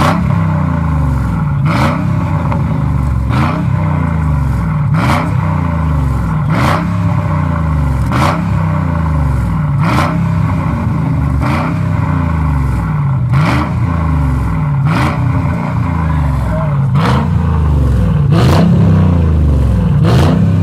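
Mercedes-AMG V8 engine revved over and over, its note rising and falling in pitch about every one and a half seconds, with a short sharp crack from the exhaust at each cycle.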